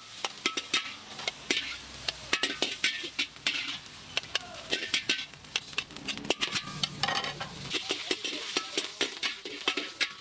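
Char koay teow frying in a wok: a metal ladle scraping and clanking against the wok in quick, uneven strokes over steady sizzling.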